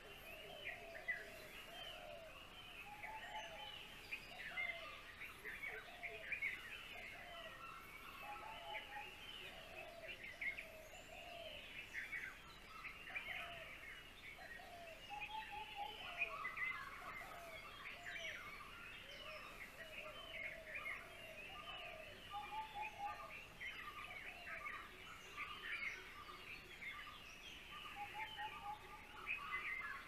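Many birds chirping and calling at once: a dense, unbroken chorus of short high chirps with lower, repeated calls mixed in.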